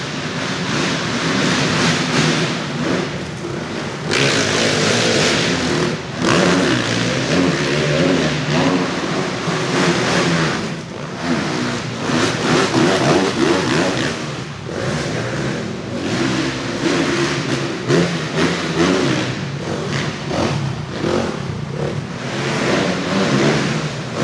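Dirt bike engines revving hard on a supercross track, their pitch repeatedly rising and falling as riders open and close the throttle through jumps and ruts.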